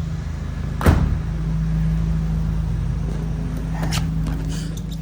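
Audi A5's turbocharged engine idling with a steady low hum, with a sharp click about a second in and a fainter one near the end.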